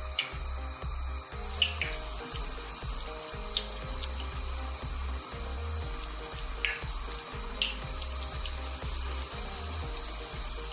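Breaded chicken pieces deep-frying in hot oil: a steady sizzle with occasional sharp crackles. Background music with a pulsing bass runs underneath.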